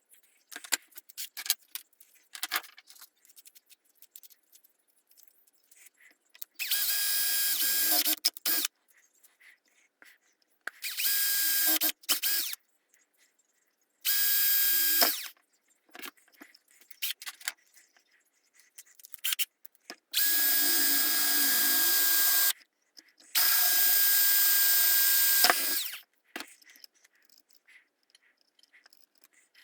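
Power drill running in five short bursts at a steady speed, each one to two and a half seconds long. Light clicks and rattles of small parts are heard between the bursts.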